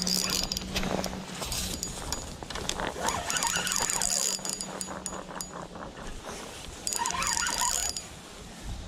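Fishing reel being wound in: a fast run of ticking clicks from the reel's gearing over a steady low hum.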